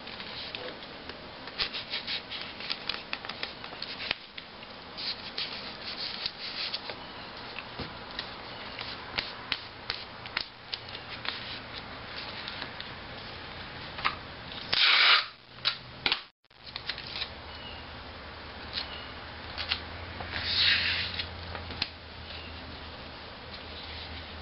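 Sheets of paper being creased, handled and pressed flat on a wooden tabletop: crinkling, rustling and rubbing with many small crackles. Louder bursts of paper rustle come about 15 seconds in and again about 21 seconds in.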